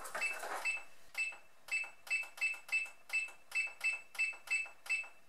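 Thermomix control panel beeping as its time button is pressed repeatedly to set the timer: a rapid run of short, high electronic beeps, about three a second. A brief rustle of handling the lid comes at the start.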